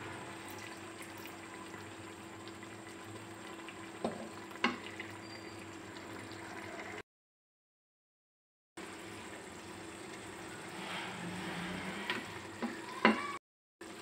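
Water poured from a ladle into a pot of cooking beef mince, then a steady hiss of the mince simmering as it is stirred, with a few sharp knocks of the spoon against the aluminium pot. The sound cuts out completely for about two seconds midway.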